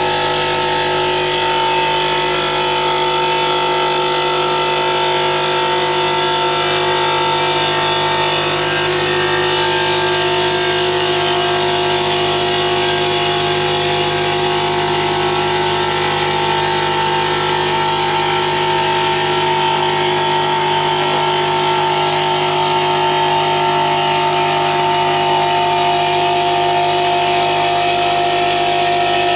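CNC stone polishing machine running steadily, its motor giving a constant whine of several held tones over an even hiss.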